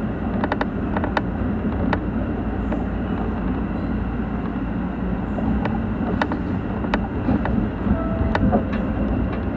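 Electric commuter train running along the track, heard from the driver's cab: a steady rumble of wheels on rail, with scattered sharp clicks.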